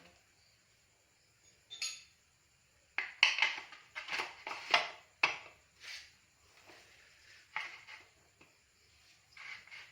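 Metal tools and motorcycle brake parts clinking and knocking against each other as they are handled: one clink about two seconds in, a quick run of clatter from about three to six seconds, then a few scattered knocks.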